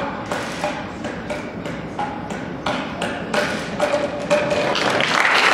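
Juggling clubs knocking into the hands at each catch, about three a second, with applause starting near the end as the juggling stops.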